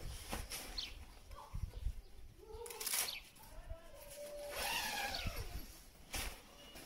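Outdoor ambience with a few short bird chirps. A nylon sleeping bag rustles and bumps as it is handled, loudest in the middle.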